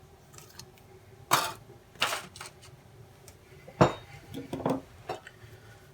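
Light knocks and clicks of small model rocket kit parts being handled, fitted together and set down on a tabletop: about five separate knocks, the sharpest about a second and a half in and near four seconds in.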